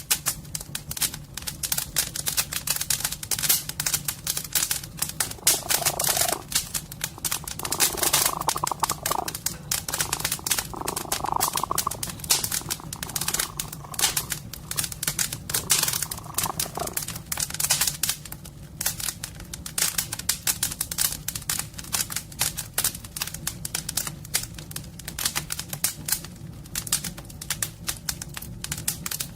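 Wood fire in a fireplace crackling, with dense, irregular pops and snaps, over a steady low purr from a cat.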